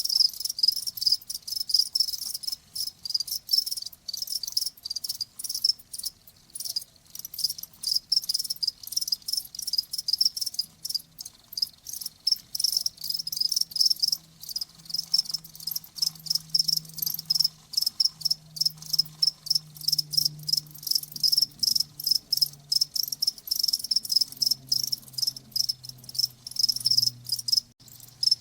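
Crickets chirping in dense, rapid, repeating high-pitched pulses that run on without a break.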